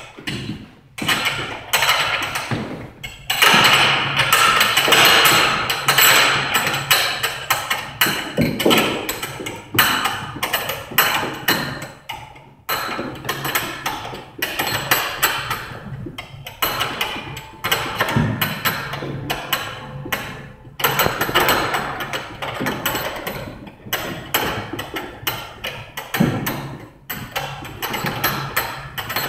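Heavy battle rope slapping the gym floor in rapid, repeated waves, with a few short breaks.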